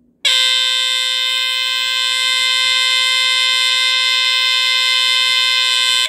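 Square-D Earli-Gard EGD-1C ionization smoke detector's Edwards squealer horn sounding its alarm, set off by canned test smoke. It comes in suddenly a moment in as a loud, steady modulated DC squealer tone.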